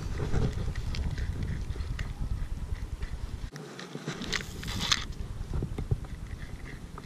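Wind rumbling on the camera microphone, with scattered crackles and ticks from handling the spinning rod and reel while a topwater frog is retrieved across a matted pond; a short rush of hiss about four seconds in.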